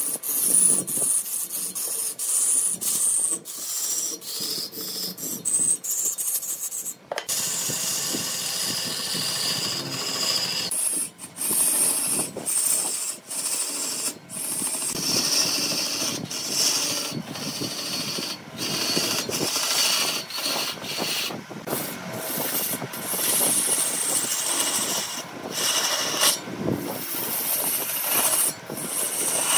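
Wood being cut on a lathe: a turning tool rasping and scraping against the spinning blank, breaking off and starting again many times.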